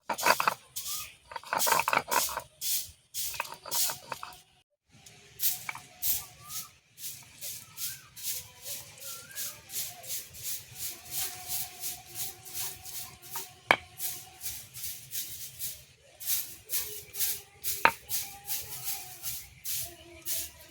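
Ginger and garlic being ground on a flat grinding stone (shil-nora), the stone rubbed back and forth in a steady rhythm of about two gritty scraping strokes a second. Two sharp clicks stand out, about 14 and 18 seconds in.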